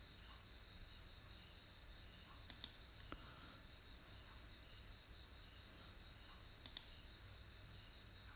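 Faint steady high-pitched electronic hiss from the recording setup, with a few soft computer-mouse clicks, some in quick pairs, about two and a half, three and seven seconds in.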